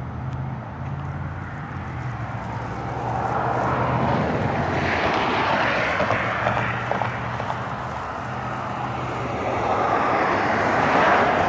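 Vehicles passing: a rushing noise that swells about four seconds in and again near the end, over a low steady engine hum.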